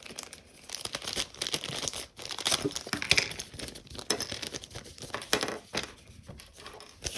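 A small packet crinkling and rustling as hands open it and search through it, with irregular crackles throughout.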